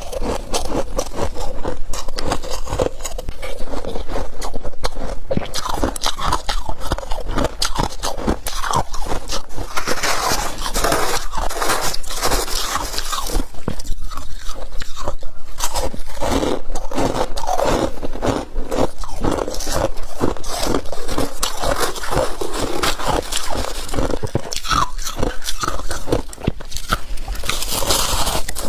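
Humidifier frost being squeezed in the hands and bitten, giving a dense run of squeaky crunches and scraping.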